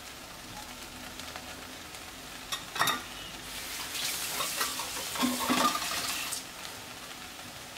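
Ground-beef filling sizzling steadily as it fries in a pot on the stove, swelling louder in the middle, with a single sharp knock about three seconds in.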